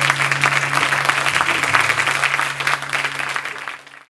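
Audience applauding after a live rock song, with a low steady tone held underneath. It all fades out near the end.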